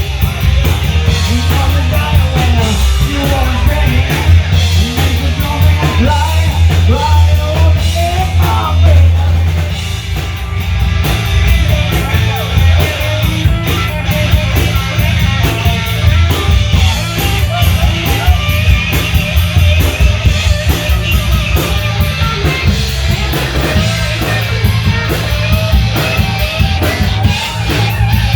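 Rock band playing loud punk rock, with electric guitar, bass and drums and no sung words.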